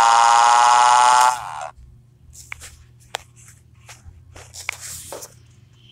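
A synthetic text-to-speech voice holding one long, flat 'aaaa' scream, which cuts off about a second and a half in. Faint scattered clicks follow.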